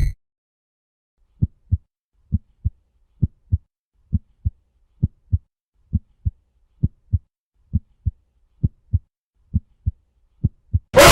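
Heartbeat sound effect: pairs of low thumps (lub-dub), about one beat a second, steady. At the very end a sudden loud burst of noise cuts in.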